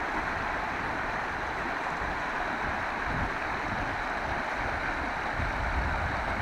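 Shallow, rocky river rushing steadily over and between stones, running high after overnight rain.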